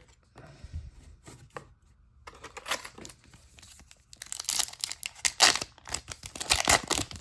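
A plastic trading-card pack wrapper being torn open and crinkled. A few faint handling clicks come first, then the crinkling grows dense and loudest from about four seconds in.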